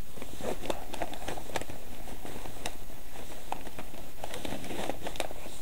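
Hands rummaging in the pocket of a canvas shoulder bag: faint rustling with scattered light clicks of small items being handled.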